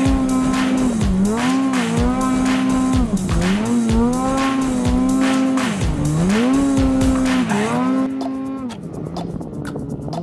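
Snowmobile engine running at high revs, its pitch dipping briefly and climbing back several times as the throttle is eased and reapplied, over background music with a steady beat; the engine drops away near the end, leaving the music.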